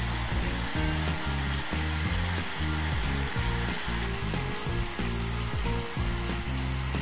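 Sugar-and-water syrup boiling hard in a pan, a steady fine sizzling bubble: the early stage of caramel making, before the syrup colours. Background music with a stepping bass line plays louder underneath.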